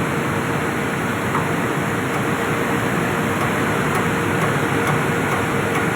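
Steady, even machinery noise from an industrial boiler plant, with a constant hum running through it.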